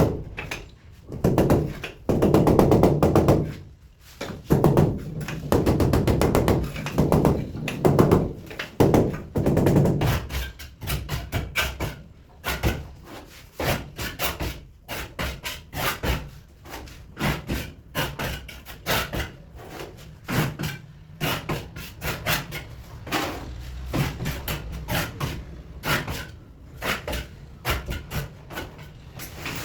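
Irregular series of sharp taps and knocks, several a second, through most of the stretch.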